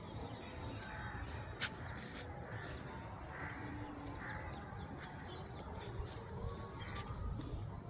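Crows cawing now and then, over a steady low background noise.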